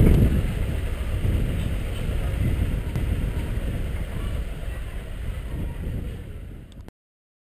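Car driving slowly along a rough dirt street, heard as a low rumble of engine and road noise with wind buffeting the car-mounted microphone. It fades gradually and cuts off abruptly near the end.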